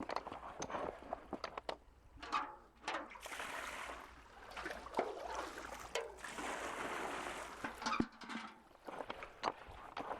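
Water sloshing as a sweater is worked in a roughly 100-year-old hand-operated washboard washing machine, with sharp clicks and knocks from the machine. Two longer washes of sloshing come about three and six seconds in.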